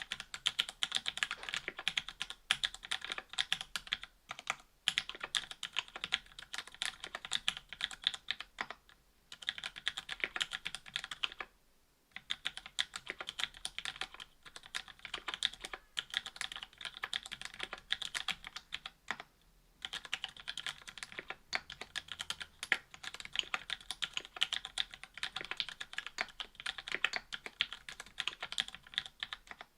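Typing on a Duck Orion V2.5 mechanical keyboard with lubed Cherry Hyperglide MX Black linear switches, GMK keycaps and an FR-4 plate: quick runs of keystrokes broken by a few short pauses.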